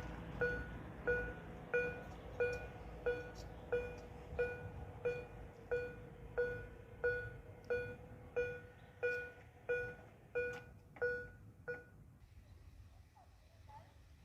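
Level crossing warning bell ringing in an even, steady rhythm of about one and a half strokes a second, each stroke a clear ding of the same pitch. It stops about twelve seconds in, leaving a faint low rumble.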